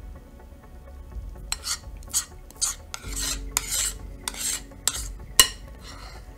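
Metal spoon scraping the inside of a mixing bowl, scooping up sticky dumpling dough in a run of quick, rasping strokes that starts about a second and a half in. Near the end the spoon gives one sharp clink against the bowl.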